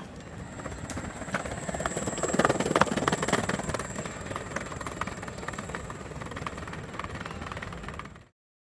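Yuneec E-GO Cruiser electric skateboard rolling over brick paving, its wheels clattering over the joints, loudest a couple of seconds in. The sound cuts off suddenly near the end.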